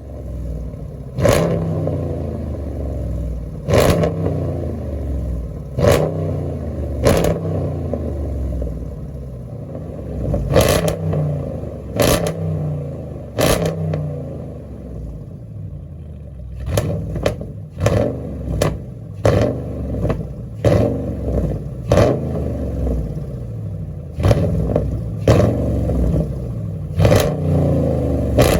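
An engine running with a steady low drone, broken by sharp clacks every one to two seconds.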